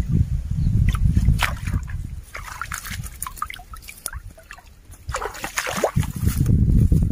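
Splashing and sloshing of shallow muddy water and rustling of grass as a hand net is worked through a stream's edge, under an uneven low rumble of wind and handling on the microphone. A few short high chirps and clicks come in the middle.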